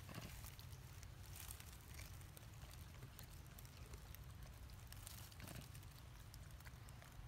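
Near silence: faint outdoor background with a steady low rumble and a few faint ticks.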